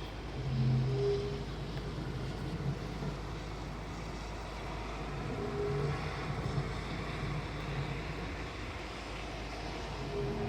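A steady low hum, with a deeper tone that swells and fades about every five seconds: about a second in, about halfway through, and near the end.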